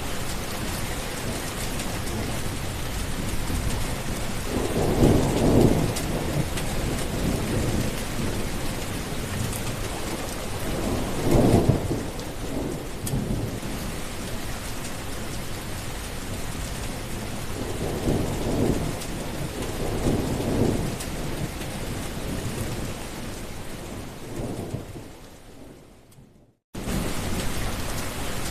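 Steady heavy rain with thunder rumbling several times, four low rolls spread over the stretch. Near the end the storm fades out to a moment of silence, and another rain recording starts abruptly.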